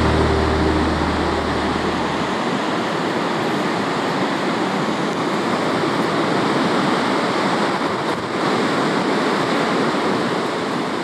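Ocean surf: a steady rushing wash of waves. Low sustained background-music tones fade out about two seconds in.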